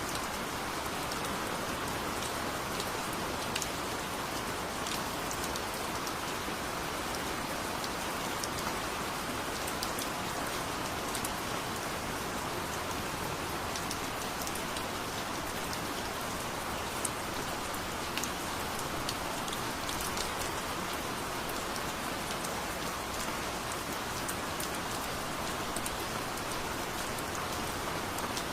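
Steady heavy rain falling on a surface, an even hiss with many individual drops ticking.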